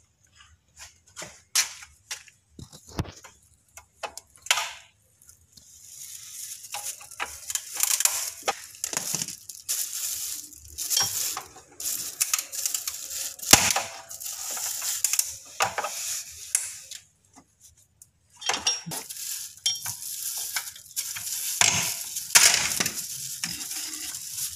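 Clear plastic bag crinkling and rustling as it is wrapped around a spin-on engine oil filter being unscrewed by hand, with scattered small clicks and taps. Only separate clicks are heard for the first few seconds; the crinkling starts about five seconds in and breaks off briefly near the end.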